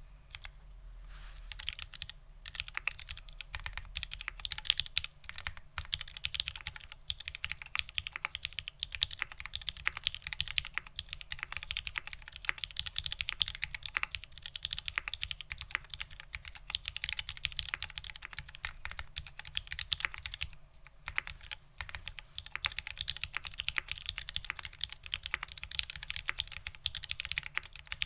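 Fast, continuous typing on a 60% mechanical keyboard with vintage Cherry MX Black linear switches in a POM plate and ABS doubleshot keycaps: a steady stream of key clacks, with a brief pause about twenty seconds in.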